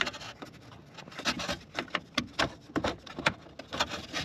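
Hands working the EVAP vent valve's plastic electrical connector and hose retaining clip behind the fuel tank heat shield: a run of irregular small clicks, taps and rubbing, with no steady tone.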